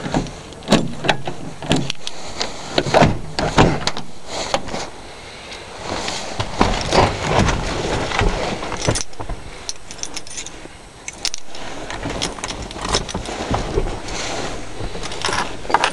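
Keys jangling and clicking in a pickup truck's door lock, then the door being opened and someone getting into the cab: a run of clicks, knocks and rustles.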